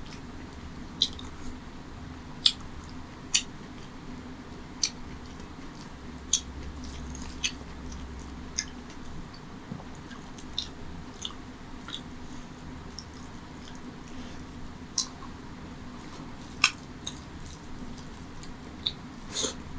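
Close-miked eating sounds from a mutton curry and rice meal eaten by hand: wet chewing and mouth smacks, heard as irregular sharp clicks about once a second over a steady low hum.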